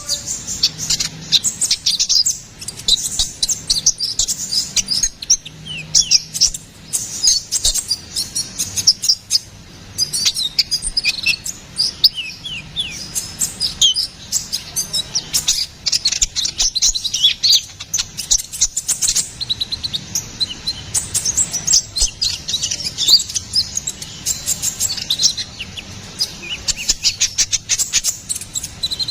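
Konin kolibri ninja, a small sunbird, singing in a fast unbroken stream of very high, sharp chirps, ticks and short falling whistles.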